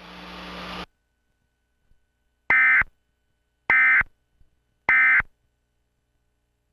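Emergency Alert System End of Message: three short SAME digital data bursts, harsh two-tone modem-like buzzes about a second apart, marking the end of the alert. Just before them, background noise cuts off abruptly.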